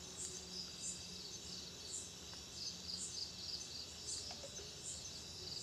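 Faint, high-pitched insect chirping, short calls repeating about once a second, over quiet background hiss.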